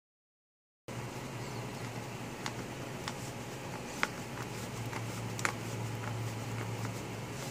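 Gear oil being hand-pumped into an outboard gearcase: faint, irregular clicks and taps of the pump over a steady low hum. The sound starts about a second in, after a moment of silence.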